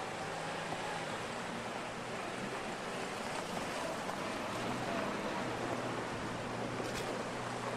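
Steady rushing of a shallow river, with the low running of a Jeep Liberty's engine underneath as the SUV drives through the ford and out onto the bank. A brief click near the end.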